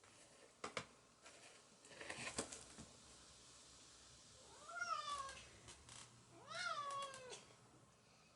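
A few light clicks and a rustle, then a cat meows twice, each call rising and then falling in pitch, the second a little longer.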